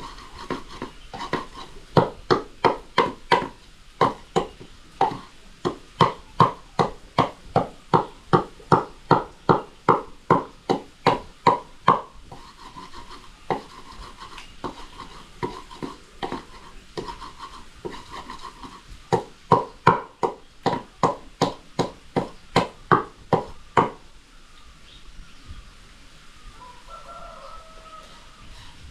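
Rhythmic hard knocks, about two to three a second, in long even runs that soften for a while midway and stop a few seconds before the end, typical of kitchen work such as chopping or pounding.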